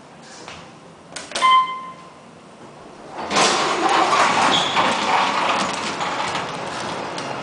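Inside a large hydraulic passenger elevator's cab, a short chime sounds about a second in, with a few clicks around it. About three seconds in, the elevator's doors start to slide, a loud steady rumbling that carries on.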